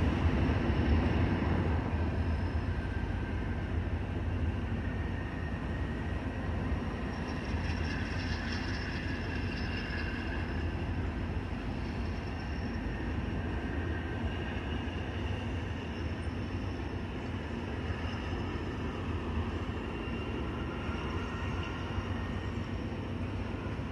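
Norfolk Southern manifest freight train's cars, centerbeam flatcars, rolling past with a steady rumble of wheels on rail. Faint high tones come and go above the rumble.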